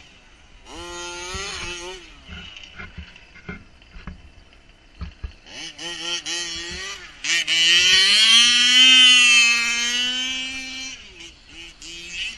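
Radio-controlled cars driving past, their motors revving and rising and falling in pitch. The loudest run comes from about seven seconds in, a long rise that holds high for a few seconds before fading.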